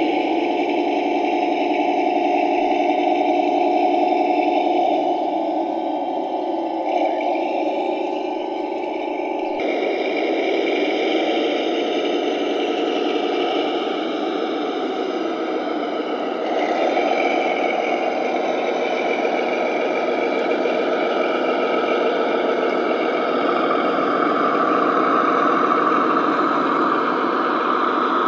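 Large-scale model diesel locomotives running on garden-railway track: a steady engine-like drone that changes abruptly twice.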